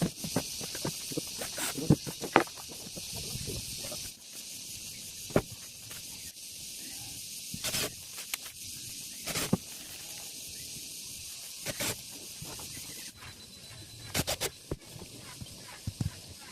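Scattered sharp clicks and knocks, one every second or two with a quick cluster near the end, over a steady hiss: hardware and tools being handled while drawer slides are fitted.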